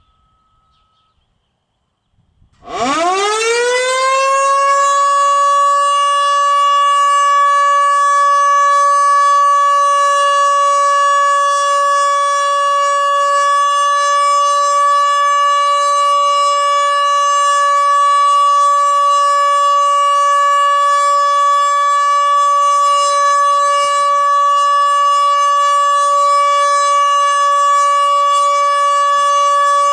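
Federal Signal Model 2 tornado warning siren starting up about two and a half seconds in. Its pitch rises quickly and then holds one steady tone, the steady alert signal.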